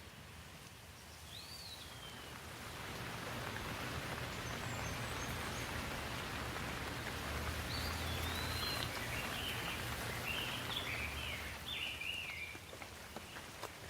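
Rain falling steadily, swelling over the first few seconds and easing off near the end, with a bird chirping a few times in the background.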